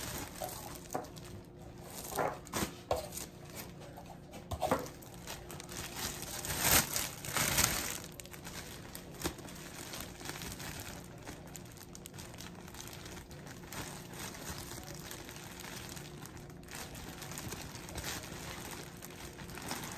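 Clear cellophane basket wrap crinkling and rustling as it is gathered and handled in the hands. It comes in several louder bursts over the first eight seconds, then goes on more softly.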